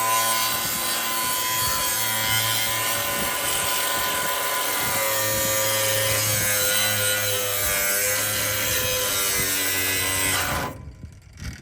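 Power tool cutting metal, running continuously with a whine that drifts in pitch under load, then cutting off suddenly near the end; it is the sound of the original bump stop being cut off the truck's frame.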